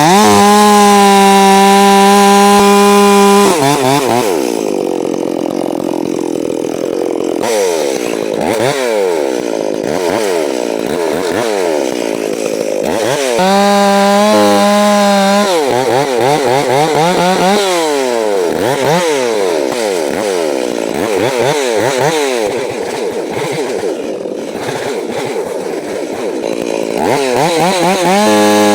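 Two-stroke chainsaw cutting through wood. It runs at a steady high pitch at full throttle, then its pitch sags and wavers as it bogs under load in the cut. It revs back up to full speed about halfway through and again near the end.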